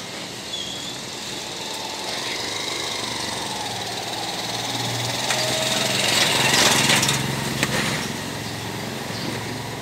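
A small engine passes close by, swelling to its loudest about two-thirds of the way in and then easing off, over steady street noise. There are a couple of sharp knocks near the loudest part.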